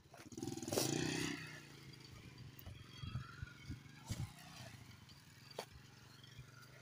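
A loud rustle and flutter about a second in as the wings of a freshly shot bird, held in the hand, flap. A steady engine hum runs underneath, with a few light clicks.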